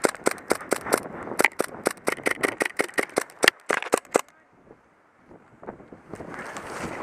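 Airsoft gunfire: a rapid, irregular string of sharp cracks and clicks. It stops about four seconds in, and more shots come near the end.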